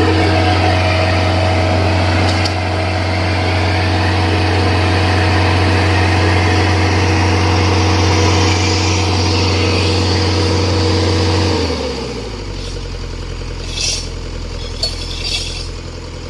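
Excavator's diesel engine running steadily at high revs, then winding down to a lower idle about twelve seconds in. A few light knocks follow near the end.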